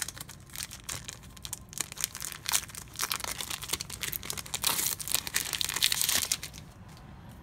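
A trading-card booster pack's wrapper being torn open and crinkled by hand, a dense crackling that grows louder about three seconds in and stops about six seconds in.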